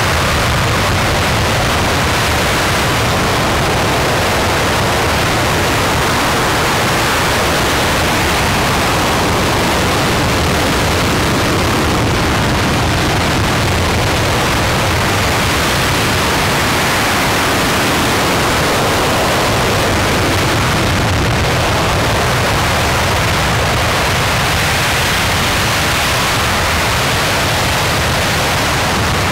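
RS-25 liquid-hydrogen/liquid-oxygen rocket engine firing on a test stand: a loud, steady, even roar of noise with no change in level.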